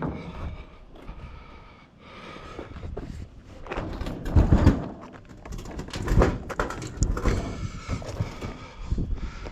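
Irregular clunks, knocks and scraping of a heavy discarded appliance being handled and loaded for scrap, with the loudest bangs in the middle.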